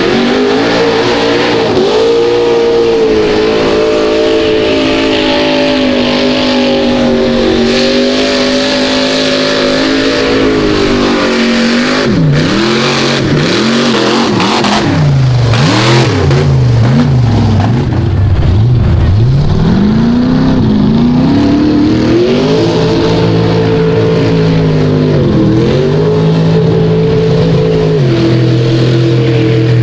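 Mega truck engine running at high revs, then revved hard up and down in quick swoops about halfway through before it holds high again, with the tires churning and throwing mud.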